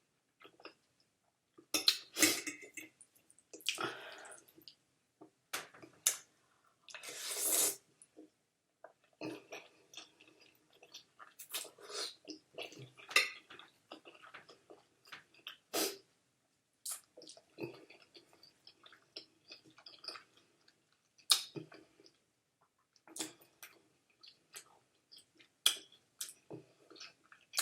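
Close-miked wet chewing and lip-smacking of a toothless mouth working through food, in short irregular bursts, with a few louder noisy sounds about 2, 4 and 7 seconds in.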